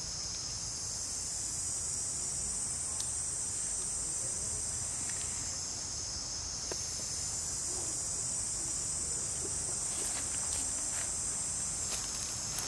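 Steady, high-pitched insect chorus droning without a break, with a few faint ticks about ten seconds in.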